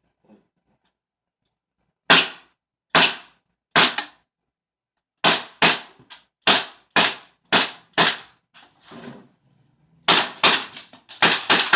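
WE 1911 full-blowback airsoft pistol firing on a CO2 magazine, each shot a sharp crack with the slide cycling. Three shots come about a second apart, then a quicker run of seven, then a fast string near the end as the full magazine is emptied.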